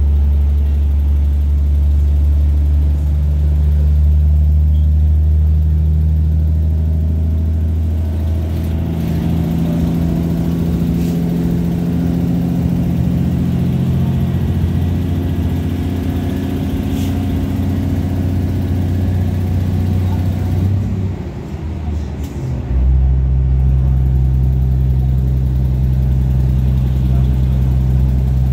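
A 2800 Class diesel multiple unit, heard from inside the carriage, running along the line: its diesel engine drones steadily together with running noise. About eight seconds in, the engine note moves higher. Around twenty-one seconds it briefly drops away, then settles back to a steady low drone.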